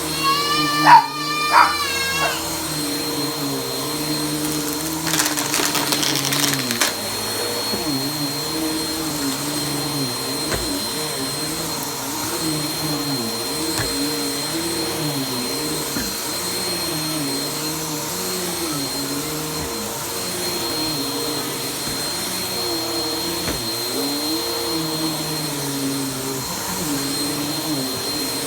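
Vacuum cleaner running on carpet, its motor pitch swinging up and down every couple of seconds as it is pushed back and forth. A dog gives a short wavering cry near the start.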